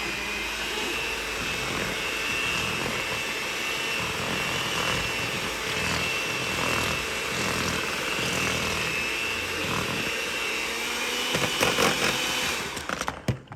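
Electric hand mixer running steadily with a high whine, its beaters churning through a thick cream cheese and whipped-topping pie filling in a plastic bowl. It is switched off near the end.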